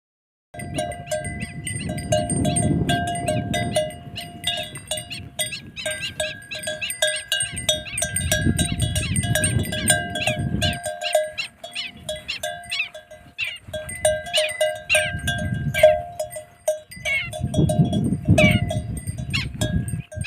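Metal livestock bells clanking irregularly, many strikes ringing at the same few pitches, as animals wearing bells move about. Patches of low rumbling noise come and go, around two, nine, fifteen and eighteen seconds in.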